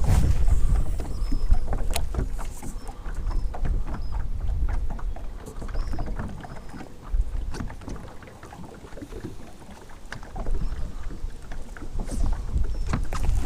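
Strong wind buffeting the microphone with a low rumble, while waves slap against the fishing boat's hull in a string of small irregular knocks.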